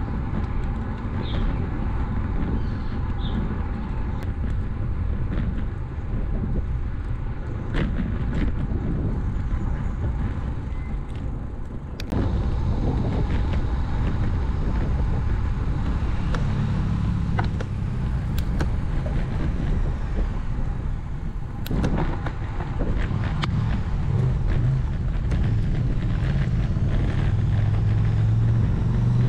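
Steady wind and road rush on a road bike's action camera, with scattered small clicks and knocks. From about halfway through, a motor vehicle's engine hum comes in and grows louder toward the end.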